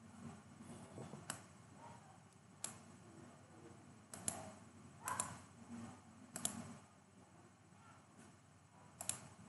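Faint room tone with about half a dozen single clicks of a computer mouse, spaced unevenly, as a text box is selected and resized.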